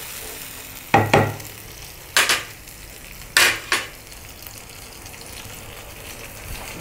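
Tomato paste and chopped onion frying in oil in a nonstick pan with a steady sizzle. A wooden spatula stirs and scrapes the pan about four times in the first four seconds, then stops.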